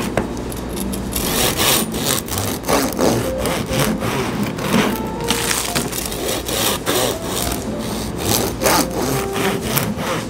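Bread knife sawing back and forth through a dense rye loaf, its blade rasping through the crust and crumb stroke after stroke as it cuts the loaf into slices.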